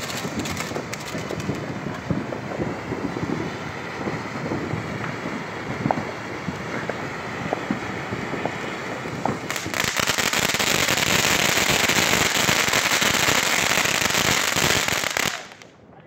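Several ground fountain fireworks spraying sparks at once, a continuous crackling hiss dotted with small pops. About ten seconds in, a louder, steadier rushing hiss takes over for several seconds, then cuts off near the end.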